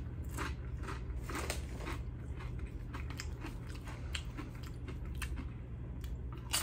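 Tortilla chips being bitten and chewed: an irregular run of crisp crunches.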